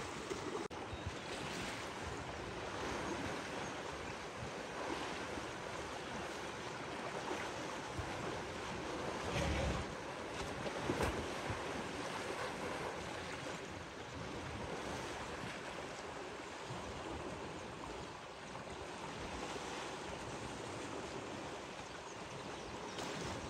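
Water sloshing and splashing as a herd of African elephants bathes and wrestles in a pool, with a couple of louder splashes about ten and eleven seconds in.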